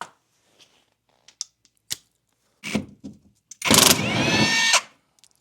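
A handheld power tool runs in a burst of about a second on a rusted bolt in the radiator support brackets, its motor whine rising as it spins up and cutting off suddenly. A few small metallic clicks and a shorter burst come before it.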